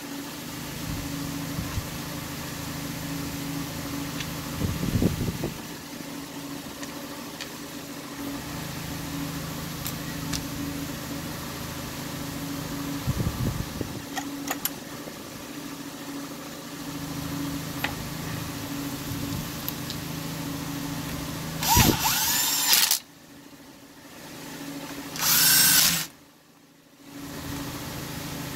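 Cordless drill with a socket bit spinning twice in short bursts of about a second each, each starting with a rising whine. A steady low hum and a few handling knocks run underneath.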